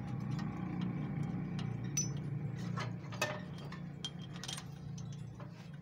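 Hand tools and small metal parts clinking against a tractor engine's exposed valve gear, a few scattered metallic clicks, the sharpest about two and three seconds in, over a steady low hum.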